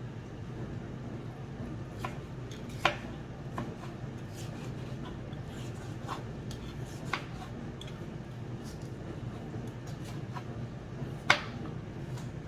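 Knife cutting vegetables on a chopping board: irregular knocks of the blade on the board, two of them louder, about three seconds in and near the end, over a steady low hum.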